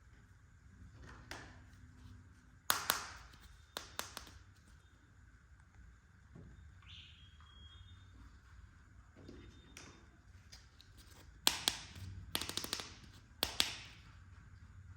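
Small hard plastic toy kitchen pieces clicking and tapping as they are handled and set down: a single sharp click about three seconds in, two more about a second later, then a quick cluster of clicks in the last few seconds.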